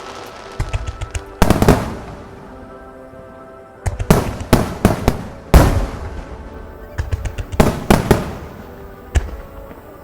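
Fireworks shells bursting in a finale barrage: loud bangs in rapid clusters, with echoing tails and quieter gaps between the volleys.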